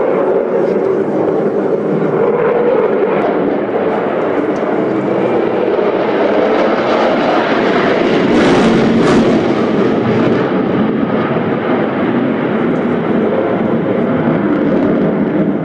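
The twin jet engines of a Sukhoi Su-35 fighter give a loud, steady roar as it manoeuvres. The roar swells and turns harsher about eight to nine seconds in, then eases back.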